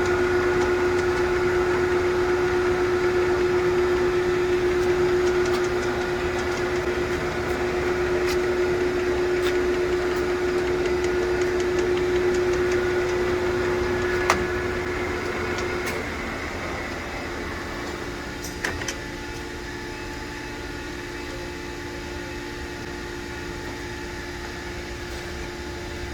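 Acra 2290 engine lathe running with a steady mechanical hum. After a sharp click about halfway through, the hum drops quieter and stays steady to the end, with a few more clicks a few seconds later.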